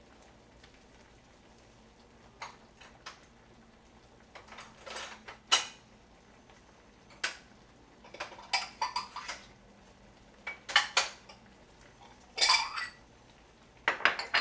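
Ceramic bowls and dishes clinking and clattering against each other and the countertop in a string of separate knocks, starting about two and a half seconds in, as bowls are taken out and set down.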